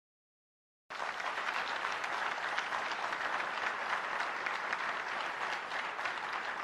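Silence, then an audience's applause cuts in abruptly about a second in and carries on steadily: many hands clapping together in a large assembly hall.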